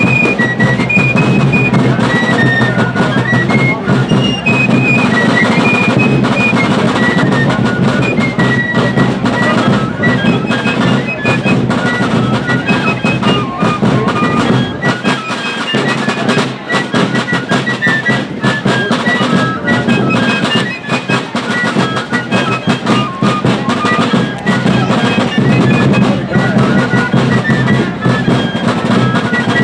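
Fife and drum corps playing a medley: fifes carry a quick, high melody over snare drums and a bass drum.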